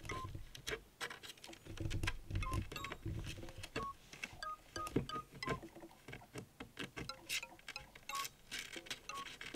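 Light chime-like background music of short, high plinking notes. Under it, scratching and tapping from a kitten's claws on a wooden panel and carpet as it paws and bats.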